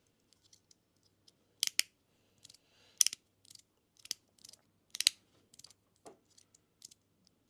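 Magnetic fidget slider pieces clicking as they are pushed and snapped against each other: irregular sharp clicks, a few loud ones among many fainter ones.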